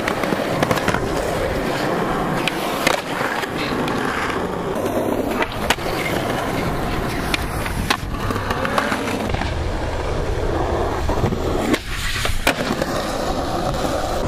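Skateboard wheels rolling and grinding on concrete, a continuous rough rumble. Several sharp clacks of the board's tail and deck hitting the ground are spread through it.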